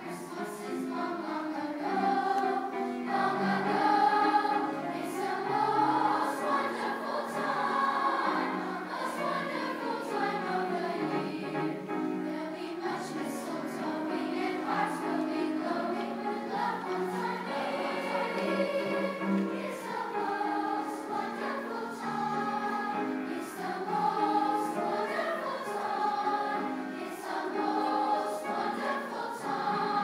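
Large middle-school choir singing in sustained, many-voiced harmony, the notes changing every second or so.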